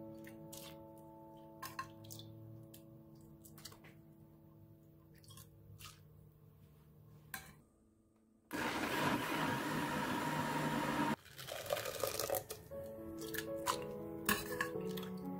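Background music with scattered clicks and drips as boiled bellflower root is ladled into a blender jar. After a short silence about halfway through, the blender runs for about three seconds, grinding the roots in their cooking liquid, louder than anything else.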